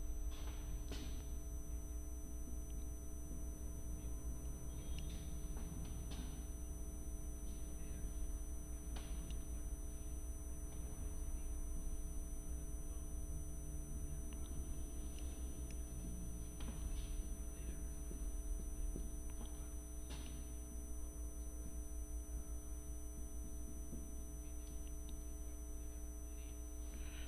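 Steady electrical hum with a low room rumble. Over it are a few faint scattered taps and strokes of a marker writing on a whiteboard.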